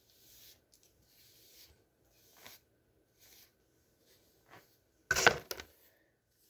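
A comb pulled through straight hair, several short brushing strokes about a second apart, then a louder clatter of handling about five seconds in.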